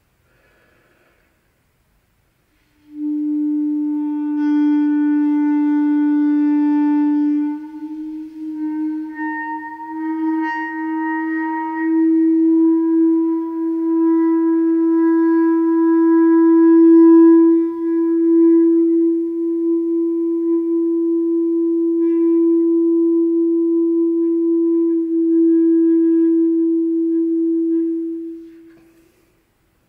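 Solo clarinet holding one long low note that enters about three seconds in. Around eight seconds in the pitch wavers and settles slightly higher as its overtones shift, the effect of vent holes being slowly uncovered, then the tone sustains steadily and fades out near the end.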